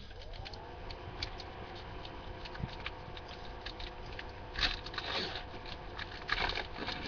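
A Magic: The Gathering booster pack being torn open and its crinkly wrapper handled, with cards rustling: scattered crackles and two denser bursts of crinkling past the middle, over a faint steady tone.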